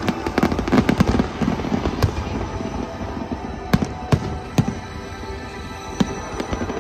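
Fireworks display going off: a dense run of bangs and crackling in the first couple of seconds, thinning to separate loud bangs spaced about half a second to a second and a half apart.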